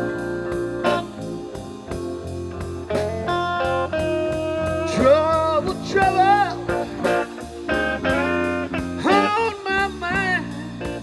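Live blues band playing a slow blues: electric bass, keyboard and drums, with lead lines that bend and waver in pitch through the second half.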